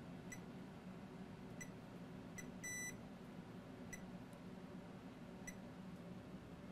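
Faint multimeter continuity beeper giving short high chirps every second or so, with one longer beep near the middle, as the probe tip is touched to capacitors to check for shorts to ground.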